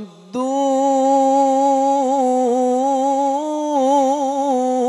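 A male qari chanting Quran recitation (tilawah) into a microphone. After a brief breath, he holds one long melismatic note with wavering ornamental turns.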